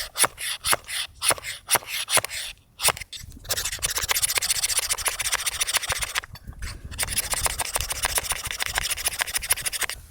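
Striker scraped hard along a ferrocerium fire-starter rod: separate strokes at first, then fast, continuous scraping a few seconds in, with a short pause in the middle, as sparks are thrown at tinder that won't catch.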